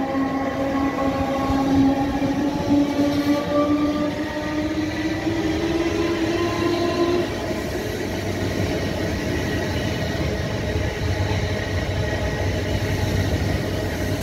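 Class 315 electric multiple unit running past along the platform, its traction motors whining and rising slowly in pitch through the first half, over a steady rumble of wheels on rail.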